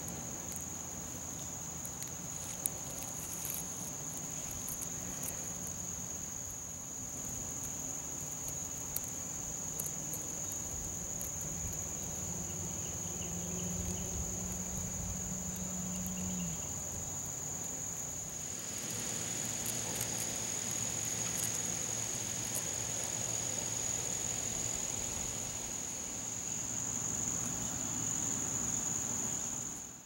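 Background chorus of summer insects: a steady, high-pitched trill that doesn't let up. About two-thirds of the way through, a louder, hiss-like insect buzz joins it.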